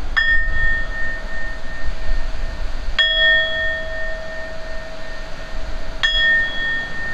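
Small metal singing bowl struck three times with a wooden striker, about three seconds apart, each strike ringing on with a clear, slowly fading tone.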